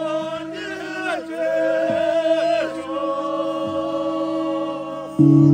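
Tibetan Buddhist procession music: a wavering, ornamented high melody over a steady low drone. About five seconds in, a much louder low sustained tone comes in suddenly and holds.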